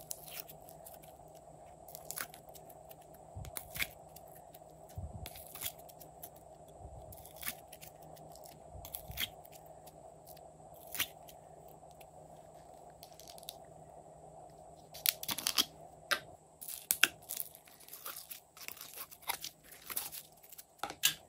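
Scattered crisp clicks and crackles as a soft plastic slime mould is flexed and pressed to pop slime pieces out. In the last several seconds comes a denser, louder run of sticky crackling as a lump of slime is squeezed by hand.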